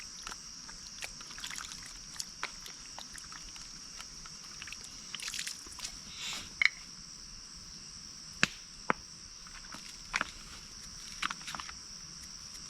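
Steady, high-pitched chorus of insects, with scattered sharp clicks and knocks, the loudest about two-thirds of the way through.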